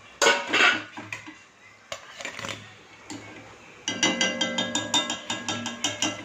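A metal wire strainer clinking against a frying pan: one noisy scrape near the start, a few scattered knocks, then a quick run of ringing taps, about six a second, from about four seconds in, as fried medu vadas are shaken to drain off the oil.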